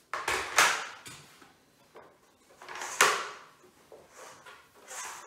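Black plastic Scalextric slot-car track sections being handled and fitted together on a wooden floor: a series of knocks and scrapes, the loudest about half a second in and about three seconds in.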